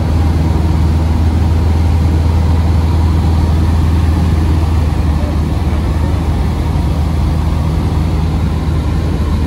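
Single-engine Cessna's piston engine and propeller droning steadily, heard from inside the cockpit in flight.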